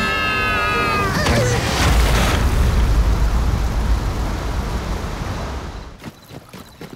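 Cartoon sound effects: a held musical chord with a slight falling glide ends about a second in. Then a loud rushing noise with a deep rumble swells and fades out over about four seconds.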